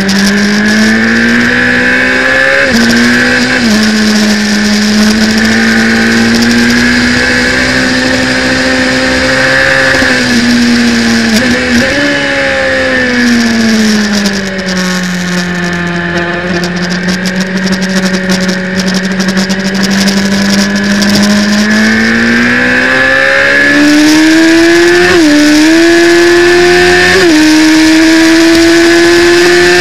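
Superbike racing motorcycle engine at speed on track. The revs hold high, sink steadily in the middle as the bike slows, then climb again with three quick upshifts near the end. Wind rush over the onboard microphone throughout.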